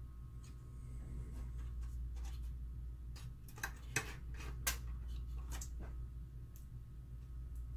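Scattered light clicks and taps of small screws and a hand screwdriver on the projector's metal main-board shield as screws are picked from a plastic tray and driven in, with a few sharper clicks about four seconds in. A steady low hum lies underneath.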